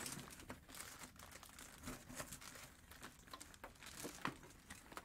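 Plastic air-column cushion packaging crinkling faintly as a boxed unit is slid out of it, an irregular run of small crackles.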